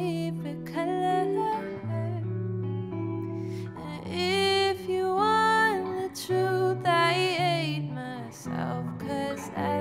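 Live music: a woman singing long held notes with vibrato over electric guitar accompaniment.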